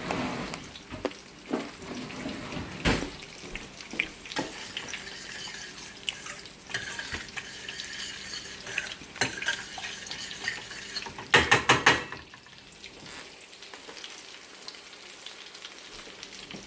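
Egg-battered chicken cutlets sizzling as they fry in a pan, with cookware clattering: a sharp knock about three seconds in and a quick run of about five loud knocks around eleven seconds in.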